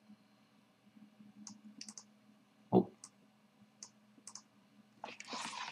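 Faint, scattered clicks and clinks of bingo marbles being handled and drawn, with one duller knock about three seconds in and a brief rattle near the end.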